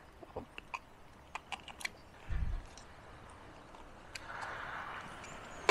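Small hard plastic clicks and taps from a Telesin three-slot battery charger case and its battery being handled. A low thump comes about two seconds in, and a soft rustle follows near the end.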